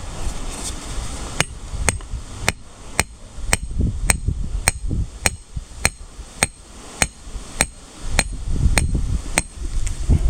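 A hammer striking steadily, about fifteen sharp, ringing blows at roughly two a second, as concrete forms for a walkway are staked and nailed in place.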